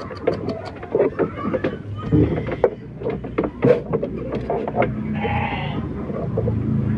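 A sheep bleats once, a single cry of about a second, about five seconds in. Before it come scattered short clicks and rustles from hands handling the sheep.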